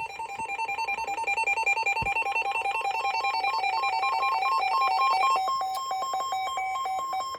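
Electronic emergency alert tone: two pitches alternating rapidly in a warble, like a ringing phone. About five seconds in it changes to a pulsing pattern over a steady high tone.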